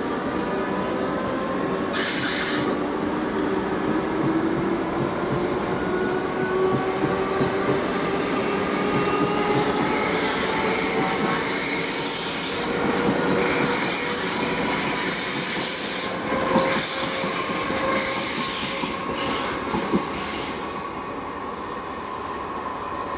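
South Western Railway electric multiple unit pulling away and accelerating, its traction motors whining in several tones that rise slowly, with a high squeal from the wheels on the rails and a few clicks over the rail joints.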